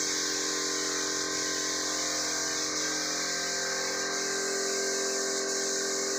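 Compressed-air spray gun hissing steadily as it sprays a clear finish onto a wooden door, over a steady machine hum.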